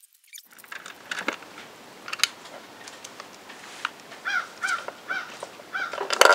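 A bird calling in a quick series of short, arched caws, about three a second, starting about four seconds in. Before that come a few light clicks of the scooter's drive-cover bolts being handled and set by hand.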